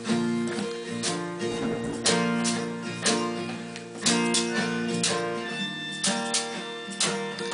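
Acoustic guitar strummed in a steady rhythm, chords struck about once a second and left ringing.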